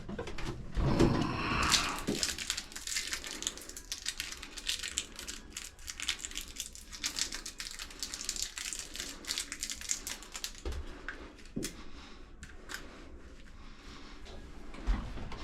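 Plastic outlet cover plate being worked into a tight fit over a GFCI outlet: continuous scratchy scraping and small clicks of plastic against plastic, with a few dull knocks near the end.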